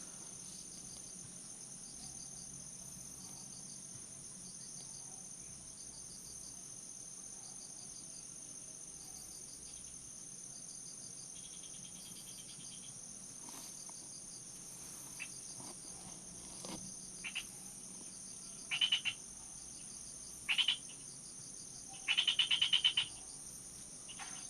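Insects, crickets among them, singing in steady high-pitched tones, with a frog calling in short rapid pulsed trills a few times in the second half, the longest call near the end.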